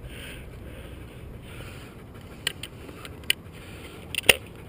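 A steady low outdoor rustle with a few sharp mechanical clicks, the loudest near the end.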